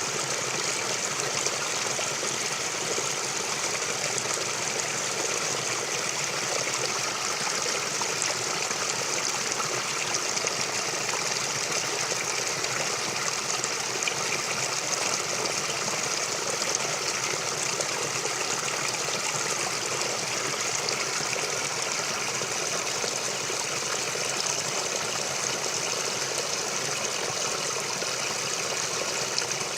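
Forest stream flowing: a steady, even rush of running water with no change in level.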